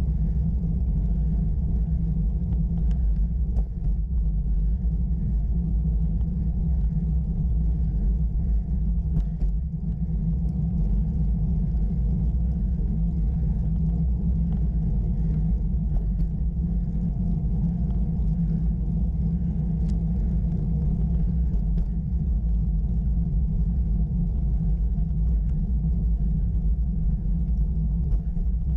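Steady low rumble of wind and road vibration picked up by a bicycle-mounted camera riding up a rough tarmac lane, with a few faint ticks.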